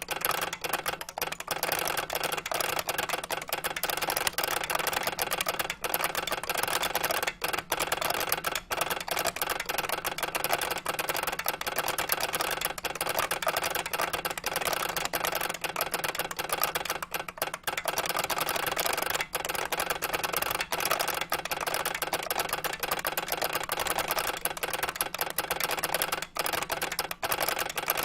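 Fast, continuous typing on an IBM 3276 beam spring mechanical keyboard: a dense stream of sharp key clicks with a few brief pauses.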